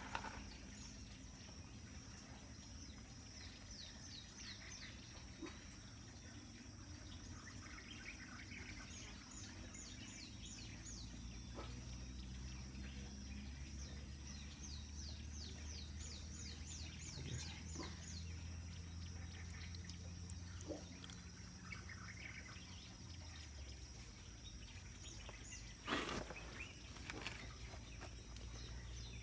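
Faint rural ambience: a steady high insect whine with runs of quick, falling bird chirps now and then over a low hum. A brief knock near the end.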